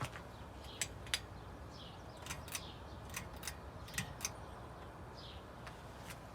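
Harbor Breeze Springfield ceiling fan running with a low steady hum, with about ten irregular sharp clicks and ticks and a few faint high, falling chirps.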